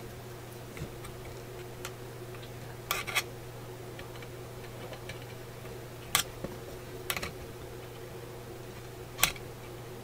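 Short sharp clicks and taps every few seconds as metal multimeter test probes are pressed on and lifted off the solder lugs under a tube radio's chassis. A steady low electrical hum runs underneath.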